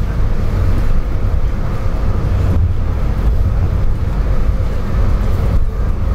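Siemens-Duwag U2 light rail car heard from inside the passenger cabin while under way: a steady low rumble of the running car.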